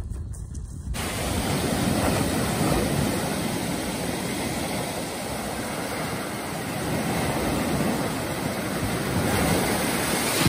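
Small waves breaking and washing up a dark gravel beach: a steady rush of surf that swells and eases, coming in about a second in.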